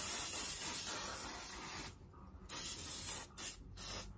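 Aerosol hair sheen spray hissing onto hair: one long spray of about two seconds, then a few short sprays.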